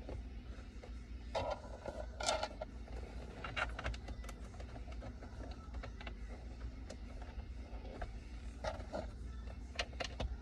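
Irregular light clicks and taps, with a few louder clusters, as T20 Torx screws are set and driven into a plastic center console lid with a hand ratchet. A low steady hum sits underneath.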